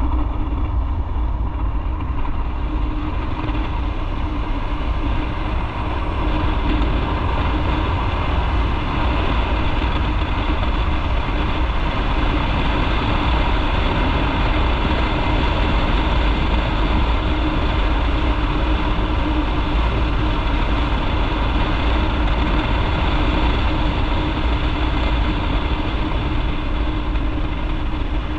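Motorcycle running at a steady speed on the road, with an even engine note over a strong low rumble.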